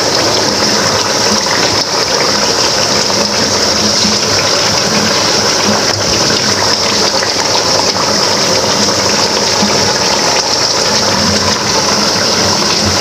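Chicken pieces and whole tomatoes frying in hot oil in a karahi: a steady, loud sizzle.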